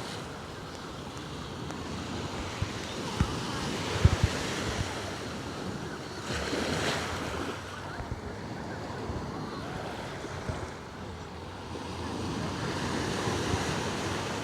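Sea waves washing onto the shore, the surf rising and falling in swells, with wind buffeting the microphone in a few low thumps about three to four seconds in.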